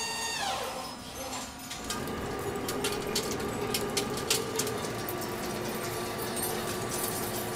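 Large lathe turning a steel shaft, running with a steady hum and a faint held whine. Sharp clicks come in a run from about two to five seconds in as steel chips break off the cutting tool and fall. In the first second a pitched whine slides down and fades.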